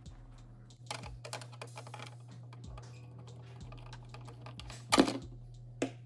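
Clicks, taps and rustles of a computer motherboard being handled and set into a PC case, with a loud knock about five seconds in and a smaller one just before the end, over a steady low hum.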